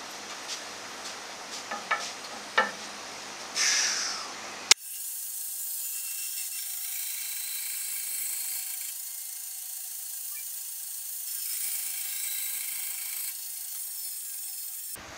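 Bandsaw cutting the old headstock ears off a wooden guitar neck blank. A few knocks of the wood being handled and positioned come first, then a sharp click, and from about five seconds in a steady, thin, high-pitched saw noise runs on until just before the end.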